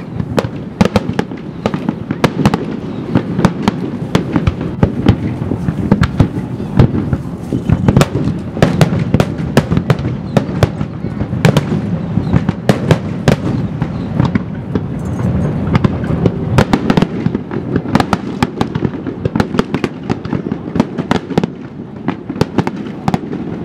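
Aerial fireworks shells bursting in rapid succession: many sharp bangs, several a second, over a steady low rumble.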